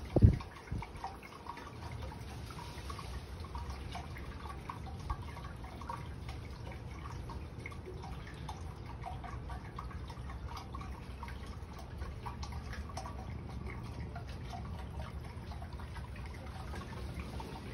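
Red ceramic urn garden fountain trickling and dripping steadily, over a low rumble of wind. A loud low thump comes right at the start.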